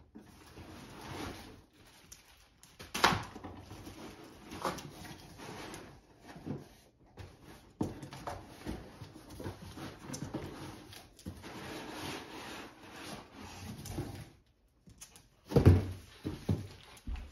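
Cardboard packaging being handled as packing inserts are pulled out of a box: irregular rustling, scraping and knocks of cardboard, with a louder thump near the end.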